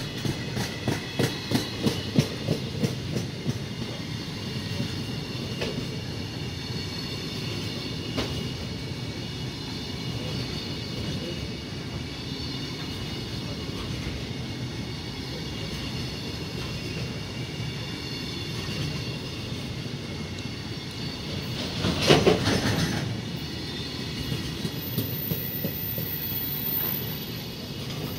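Container flatcars of a long freight train rolling past at speed: a steady rumble of wheels on rail with faint high ringing tones, and a rapid clickety-clack over the first few seconds. About 22 seconds in there is a louder burst of about a second, and the noise falls away near the end as the last wagon passes.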